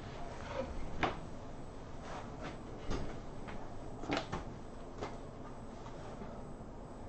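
A handful of soft knocks and bumps as a person gets up from a wooden chair and moves away, over faint room tone.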